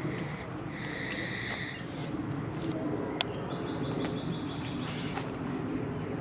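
Birds calling over a steady low background rumble: a held call about a second long near the start, then a quick run of short repeated higher notes around the middle. A single sharp click comes just before the run.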